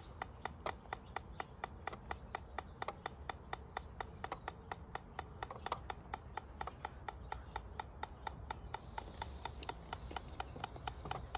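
Handheld combustible gas detector ticking at an even rate, about six ticks a second, while its probe is held at the gas pipe joints. The tick rate stays steady, the sign that no gas is being detected.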